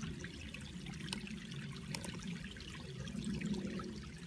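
Water trickling steadily, with a couple of faint clicks about one and two seconds in.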